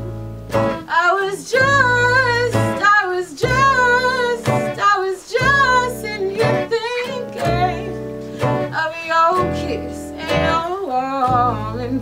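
A woman singing long, wavering held notes over a slow accompaniment of acoustic guitar and upright double bass.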